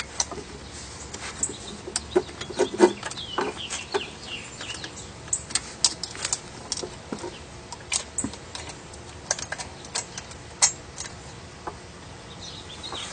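Saw chain clinking and clicking as it is handled and fitted around a chainsaw's 36-inch guide bar: irregular small metal clicks and knocks. A bird calls a few times in the background.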